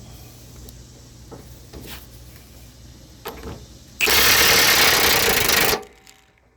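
An impact wrench hammering loudly for about two seconds, loosening the large nut and bolt that hold a mower deck wheel, after a few faint clicks of tools being fitted.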